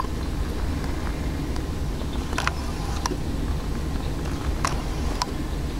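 Steady low rumble of road traffic, with four short sharp high clicks between about two and five seconds in.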